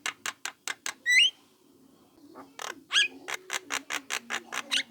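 Young Javan myna calling: a rapid run of short clicking notes, about eight a second, broken by two harsh rising squawks, one about a second in and one near the three-second mark.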